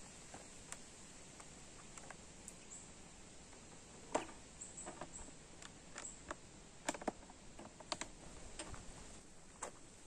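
Portable gas camping stove being handled and packed into its hard plastic carrying case: scattered light clicks and clacks, the loudest about four seconds in, with a few sharper clicks around seven to eight seconds in.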